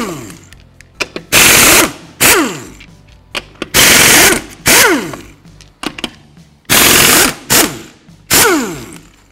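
Half-inch pneumatic impact wrench with a 21 mm socket removing car lug nuts. There are three loud hammering bursts, each followed by a short blip and a falling whine as the tool spins down.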